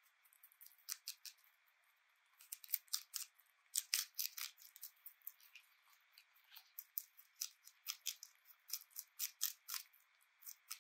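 Rabbit crunching a crisp green vegetable leaf held in a hand: rapid, crisp bites and chews, a few a second in irregular runs, with a short pause about two seconds in.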